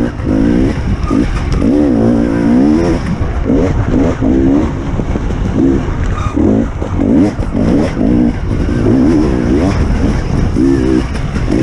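Enduro motorcycle engine revving in short bursts while riding on a dirt trail, its pitch rising and falling over and over as the throttle is opened and closed.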